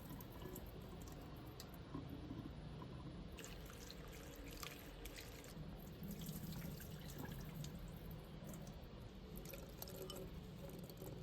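Water running from a tap into a sink, splashing and dripping, with small clicks and knocks.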